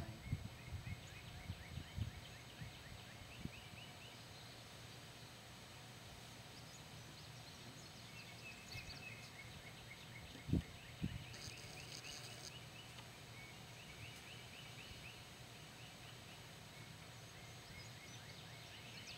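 Birds calling in the background in rapid runs of short chirps. Over them come a few dull thumps and one sharper knock about ten and a half seconds in, from handling a chainsaw and a plastic fuel can while refuelling it.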